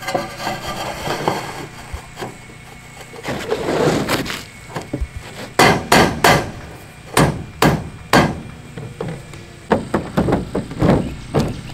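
Sharp, irregular knocks on the metal roof edge while a metal drip cap is fitted over the gutter: a string of hammer-like blows that starts about halfway through.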